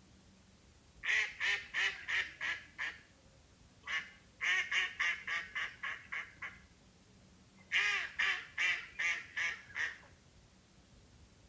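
Duck quacking in three runs of rapid quacks, about three a second, with short pauses between the runs.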